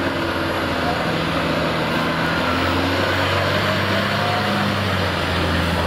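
Volvo fire engine's diesel engine running with a steady low note as the appliance pulls away and drives close past.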